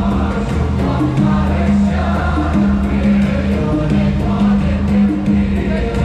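Music for a choreographed fountain show: voices singing together over held low notes that change about once a second.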